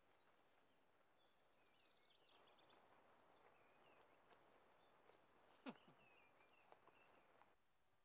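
Near silence: faint outdoor ambience with soft, scattered bird chirps and a single faint knock a little over halfway through.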